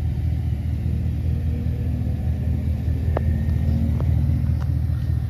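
Chevrolet Silverado pickup's engine idling steadily, a low even rumble, with a few faint clicks midway.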